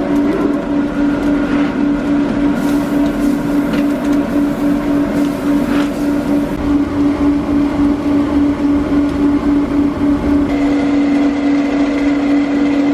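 Belt-driven mill machinery powered by an electric motor running, a loud steady hum that holds one pitch throughout.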